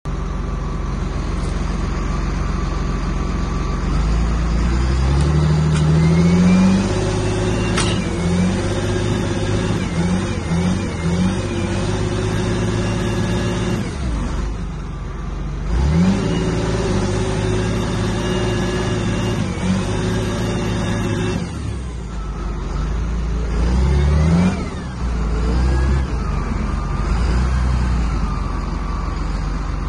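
John Deere 8220 tractor's six-cylinder diesel engine running under heavy load as it works against a tree stump, revving up several times, about five seconds in, again near the middle and near the end, and easing back in between.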